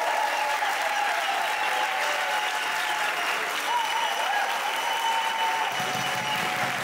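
Audience applauding steadily, with a few voices calling out over the clapping.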